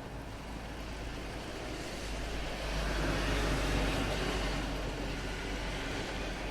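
A car passing on a wet road, its tyre hiss swelling to a peak about halfway through and then fading, over a steady wash of falling rain.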